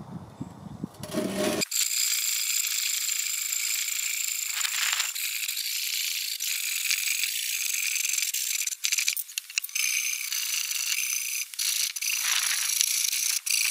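Hand saw cutting through a thick timber beam: a continuous rasp of back-and-forth strokes with brief breaks, picking up about two seconds in.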